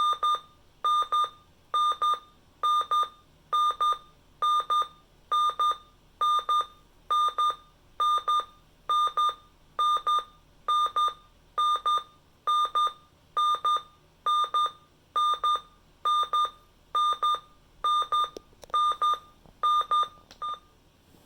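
Emgykit MD-319 alarm sounding a repeating electronic beep pattern, roughly one quick double beep a second, which stops shortly before the end.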